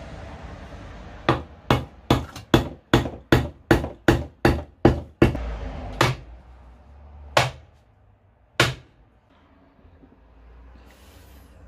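New wooden axe handle being knocked end-down against a wooden stump block to drive the axe head onto it: a quick run of about a dozen hard wooden knocks, roughly three a second, then three slower single knocks.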